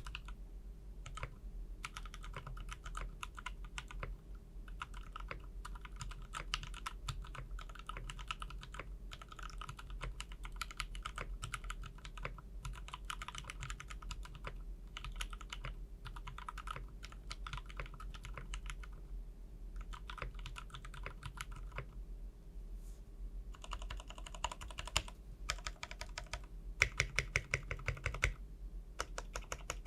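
Typing on a KBD75 V2 mechanical keyboard with an aluminium plate, stock Gateron KS3 switches and ePBT ABS keycaps: quick runs of keystrokes with short pauses between them. Near the end the strokes come louder and faster.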